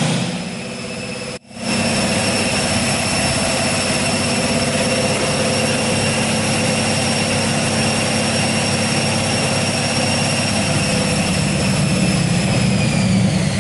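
Car on a Dynojet chassis dynamometer during a dyno run: loud, steady engine and roller noise with a steady high whine, the pitch starting to fall near the end as the car slows. The sound cuts out sharply for a moment about a second and a half in.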